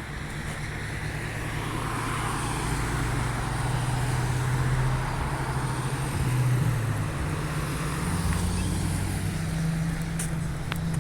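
A motor vehicle's engine running steadily, with road noise swelling and fading over several seconds and a few sharp clicks near the end.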